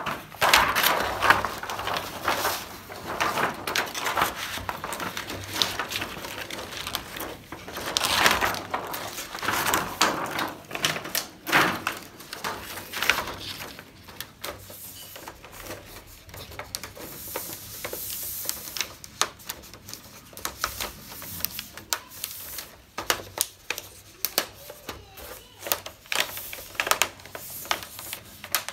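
Thin plastic reflector sheet being handled and laid into an LED TV's back panel: crinkling, rustling and irregular clicks and taps, busiest and loudest in the first half.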